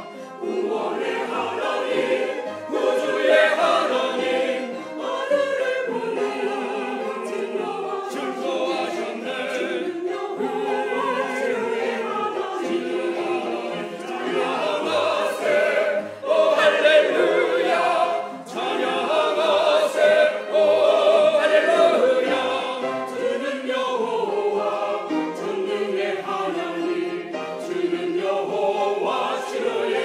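Mixed church choir of men and women singing an anthem with sustained, flowing phrases, accompanied by a small instrumental ensemble.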